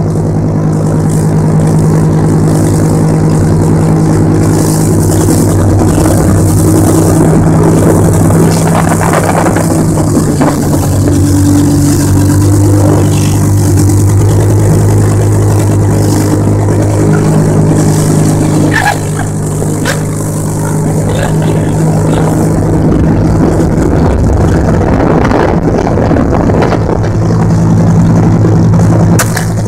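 Motorboat engine running steadily at speed, its hum shifting a little in pitch now and then, over the rush of the churning wake and spray.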